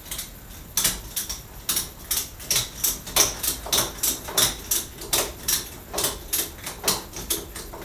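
Ratchet strap being cranked tight in a steady run of sharp clicks, about three a second, starting about a second in, compressing a 110 cc ATV's rear suspension.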